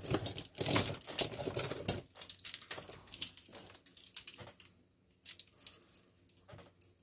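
Steel padlocks and handcuffs clinking and rattling together as they are handled. After about two seconds come quieter, scattered clicks and short rattles as a padlock is raked with a pick and tension wrench.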